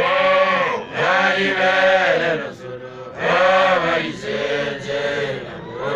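A group of voices chanting together in swelling phrases that rise and fade, one after another.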